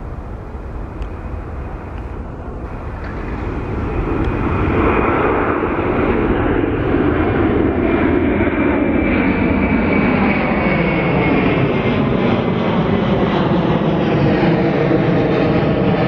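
Airbus A330-200 twin-jet climbing out after takeoff, its General Electric CF6 turbofans at climb power. The jet rumble swells about four seconds in as the aircraft comes overhead, then holds loud, with a whine that slides down in pitch as it passes and draws away.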